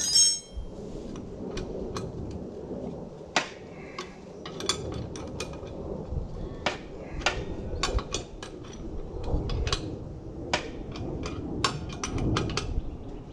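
Irregular metal clicks and clinks of a 9/16 spanner working the blade bolt and steel blade on the underside of a Victa Classic Cut lawn mower, with a ringing metal clink right at the start.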